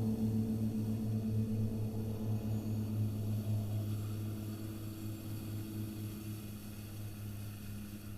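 A low, steady droning tone with overtones that slowly fades away.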